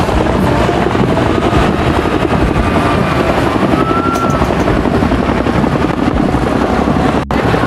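Several helicopters flying overhead in formation, the rapid beat of their rotors steady and loud, broken by a brief dropout near the end.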